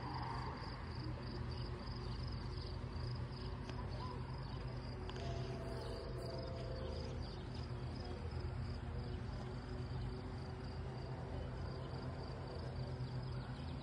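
Insects chirping in a steady, evenly pulsing rhythm over a low steady hum. A faint held tone of several pitches sounds for about two seconds near the middle.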